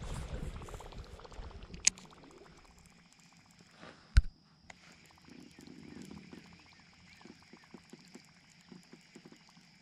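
Fishing reel and a Berkley Choppo topwater prop bait being cast and retrieved: a sharp click about four seconds in, then faint gurgling and ticking as the lure is worked across the water.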